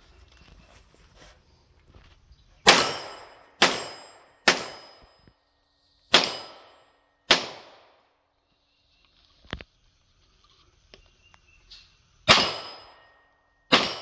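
Side-charging AR9 9mm pistol-calibre carbine firing single shots: seven sharp shots in three groups, about a second apart within each group, each ringing off briefly.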